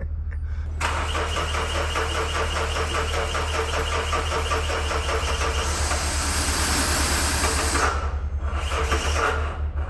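Mazda 6 diesel engine cranking on its starter and starting up, running with a steady pulsing rumble, with a short dip about eight seconds in. This is the car that had been a long-standing no-start.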